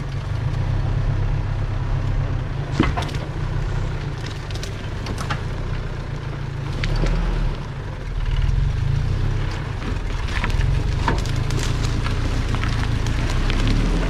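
Off-road 4x4's engine running at low revs, with scattered sharp cracks and snaps over it, several of them in the second half.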